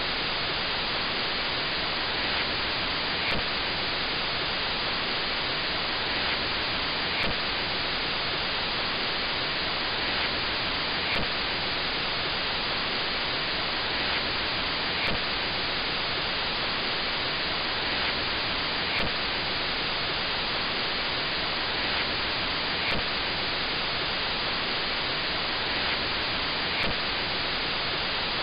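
Untuned television static: a steady hiss with a faint tick recurring about every two seconds.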